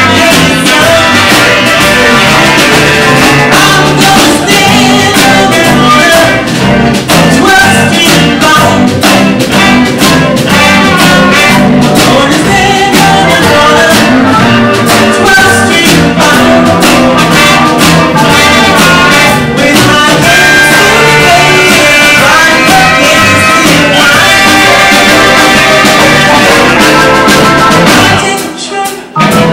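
Live band playing a Motown-style soul song, with singing over the instruments. The music drops away sharply near the end.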